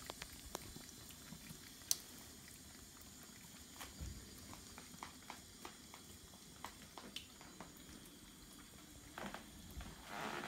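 Thin stream of tap water trickling into a kitchen sink while a Ragdoll cat laps at it, with faint scattered little clicks. About nine seconds in, a louder, noisier sound rises briefly.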